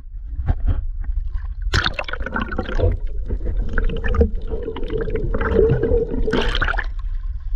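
Water splashing and gurgling in a rushing stretch of about five seconds that starts near two seconds in, with a steady hum underneath, preceded by a couple of light knocks.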